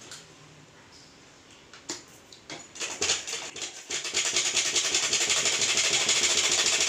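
Merritt sewing machine stitching a folded sleeve hem. A few clicks sound as the handwheel is turned, then about halfway through the machine runs steadily at a fast, even stitching rhythm.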